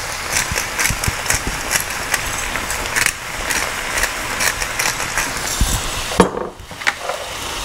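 Sliced onions and bell peppers sizzling in oil in a frying pan, with irregular crackles and clicks; the clicking thins out about six seconds in.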